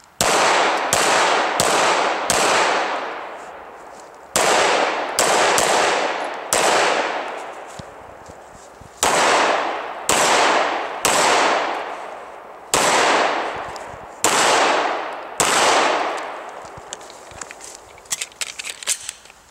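Semi-automatic pistol firing about fifteen shots in strings of three or four, under a second apart, each shot echoing off for a second or more. Near the end come a few light clicks as the pistol and its magazine are handled.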